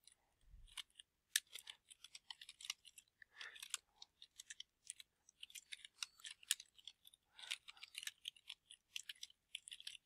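Typing on a computer keyboard: faint, irregular key clicks in quick runs with short pauses.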